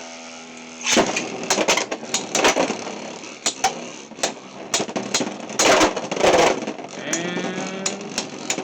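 Two Beyblade X spinning tops battling in a stadium. A whirring tone for about the first second gives way to repeated sharp clacks as the tops collide and hit the walls, with a louder, harsher run of clashes around six seconds in.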